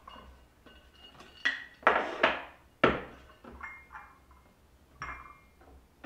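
White ceramic cup, saucer and plate being set down on a wooden desk, clinking and knocking: four sharp knocks between about one and a half and three seconds in, then a few lighter clinks.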